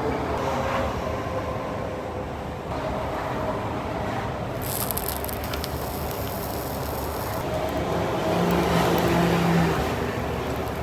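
Road traffic: a steady hum of passing vehicles, one growing louder and peaking about eight to ten seconds in. Light clicks and scrapes of cooking gear come through around the middle.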